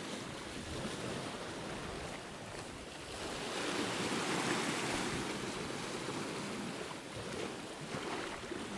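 Sea waves washing against a rocky shoreline: a steady rush of surf that swells about four seconds in.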